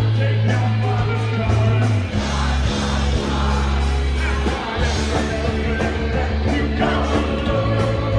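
Live indie rock band playing loud through the PA: electric guitar, bass and drums, with a male singer. The bass moves between long held notes about every two seconds.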